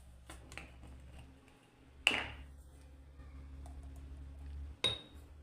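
Light clicks and taps of kitchen containers and utensils being handled, with two sharper knocks, about two seconds in and near the end, over a low steady hum.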